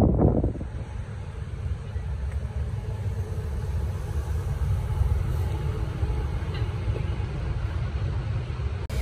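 Steady low rumble of a moving vehicle, which breaks off suddenly near the end.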